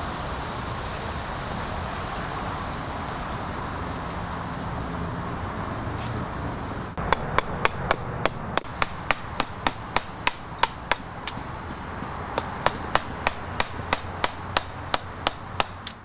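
Wooden carving chisel driven into the wood of a standing tree by a mallet, in quick regular blows about three a second. The blows start about seven seconds in, after a stretch of steady rushing background noise, and break off briefly partway through.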